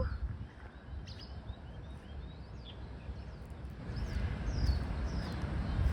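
Faint, high bird chirps, short notes that mostly sweep downward, scattered through, over a steady low rumble of outdoor background noise.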